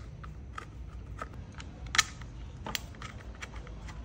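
Scattered small clicks and taps of a plastic recoil starter housing and its screws being handled and fitted by hand onto a small two-stroke brush cutter engine, the sharpest knock about two seconds in, over a steady low hum.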